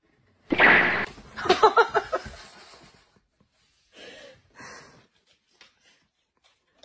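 A woman gasps sharply, then gives a short burst of breathy, pulsing laughter, followed near the end by a couple of soft breathy exhalations.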